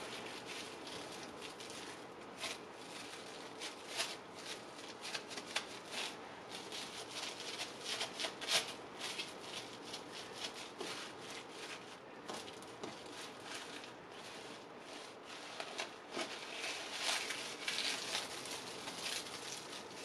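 Saran plastic wrap crinkling and rustling faintly, with scattered small crackles, as hands roll soft cheese cracker dough into a log inside it.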